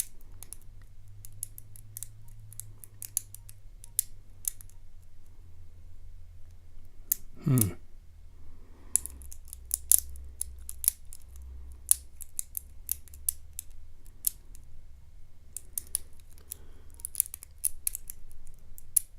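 Lock pick and tension wrench working the pin stacks of a Yale Euro cylinder: sharp, irregular metallic clicks and light scraping as the pick lifts pins and they set or drop back.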